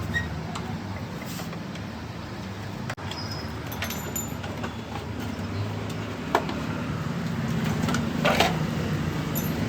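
A motor vehicle engine running steadily as a low hum, with a few sharp clicks and knocks over it.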